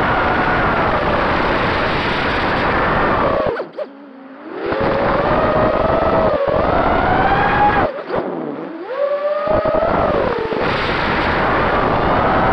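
FPV quadcopter's four 2306 2400 kV brushless motors and propellers whining, the pitch rising and falling with throttle, over a rush of wind. Twice, a few seconds in and again about two-thirds of the way through, the throttle drops: the sound falls low and quieter, then the motors spool back up.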